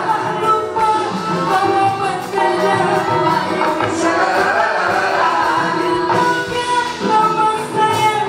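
A group of singers, men and a woman, singing together into microphones over band music.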